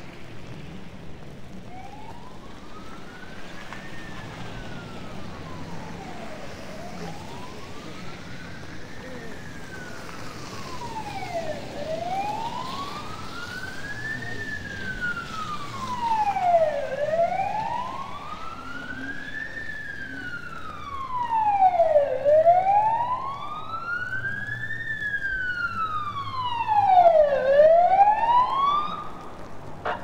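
Emergency vehicle siren wailing in a slow rise and fall, about once every five seconds, growing louder as it approaches and cutting off near the end. Steady street traffic noise lies underneath.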